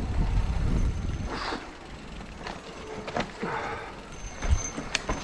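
Electric mountain bike riding over a rough dirt trail: wind rumble on the microphone for the first second or so, then scattered rattles and sharp knocks from the bike over the ground.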